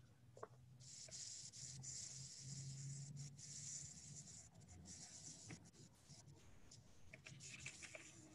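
Faint scratching of writing on paper, heard through a video-call microphone, with a faint low hum underneath and a few small clicks.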